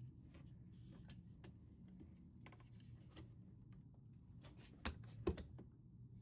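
Faint scattered clicks and taps of tools being handled, with two sharper clicks about five seconds in, over a low steady hum.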